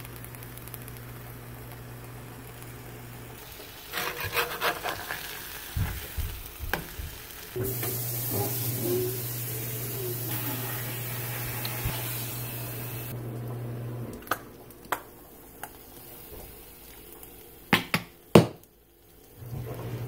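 Sliced beef and cheese sizzling on a stovetop griddle, with a metal spatula scraping and clattering on it. A few sharp knocks come near the end.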